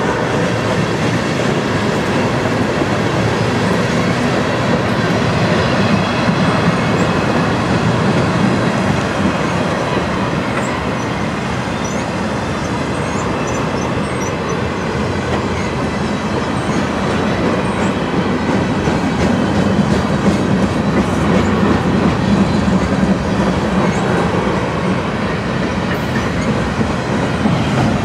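Loaded freight flatcars rolling past: the steady rumble of steel wheels on rail with clickety-clack over the rail joints, and a few faint high wheel squeals about halfway through.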